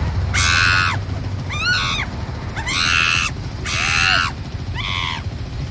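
A series of about five harsh, pitched animal calls, each under a second long, with a steady low rumble underneath.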